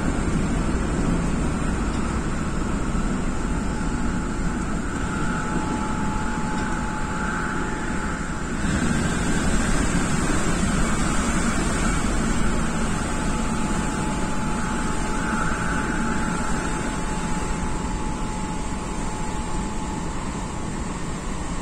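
MTR Tung Chung line K-Train running at speed between stations: a steady rumble and rush of the moving train. A thin steady whine comes in twice, from a few seconds in to near the middle and again through much of the second half.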